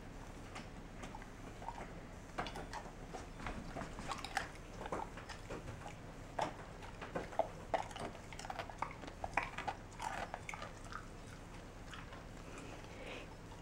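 Yellow Labrador retriever chewing a potato chip: a long run of faint, irregular crunches and mouth clicks that begins about two seconds in and dies away near the end. A lot of chewing for a little chip.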